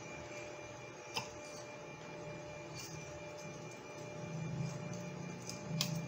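Steady low hum with two light, sharp clicks, about a second in and near the end, of a screwdriver tip prying at a 5-port RJ45 female connector while it is being desoldered from a circuit board.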